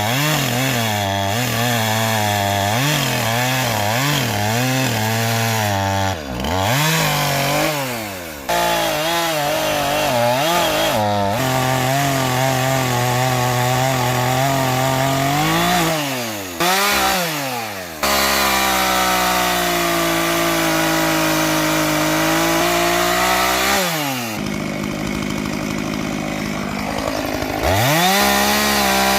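Two-stroke chainsaw cutting oak logs. The engine holds a steady high speed through long stretches, then its pitch swoops down and back up several times as the cut loads and frees the saw.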